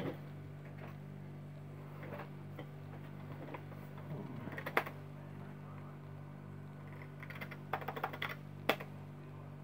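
Steady low hum of a running IBM PS/2 P70 computer, with two short runs of rapid clicking, one about four to five seconds in and one around eight seconds in.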